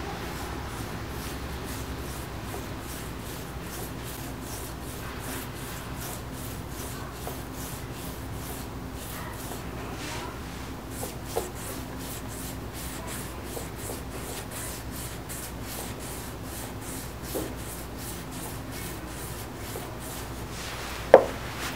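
A small abrasive pad wet-sanding car touch-up paint by hand with spray lubricant: back-and-forth rubbing strokes, about two or three a second, with a sharp click about a second before the end.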